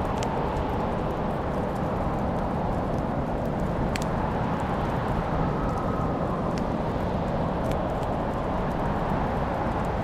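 Wood fire burning in a fireplace: a steady low rumble with sparse sharp crackles and pops, the clearest about four seconds in.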